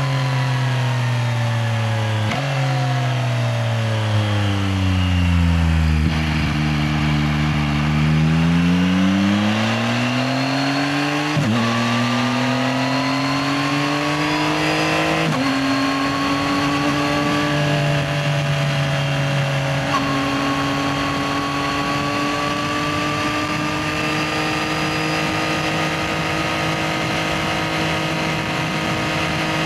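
Yamaha XSR900's three-cylinder engine slowing down, with two quick downshifts near the start, dropping to low revs about six seconds in, then pulling away again. Two upshifts follow, one about eleven seconds in and one about fifteen, before it settles into a steady cruise with the revs slowly rising.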